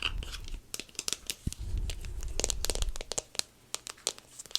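Crinkling and tearing of packaging handled close to the microphone: a quick run of sharp crackles, with a low rumble underneath during the first three seconds.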